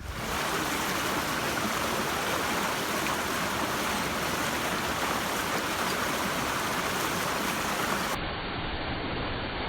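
Steady rush of a small waterfall and creek, a dense, even hiss of falling water. About eight seconds in it turns duller, losing its highest part.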